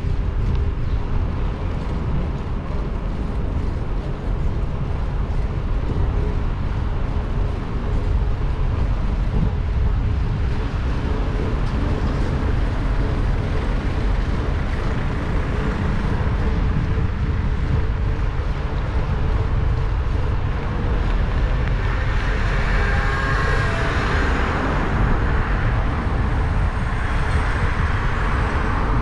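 Steady wind rumble on the microphone of a moving bicycle, with city traffic noise. About three-quarters of the way through, something louder passes, with a brief whine.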